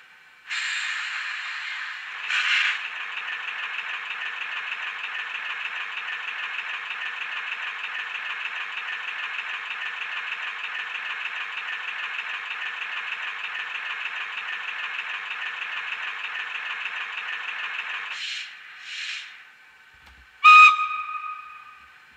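Model electric locomotive sound decoder playing through a small onboard speaker: a steady, finely pulsing mechanical running sound that stops suddenly about 18 seconds in. Two short hisses follow, then a single short whistle blast near the end.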